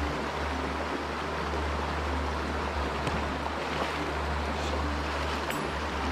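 Shallow mountain stream running over rocks and riffles: a steady rush of water with a low rumble beneath it.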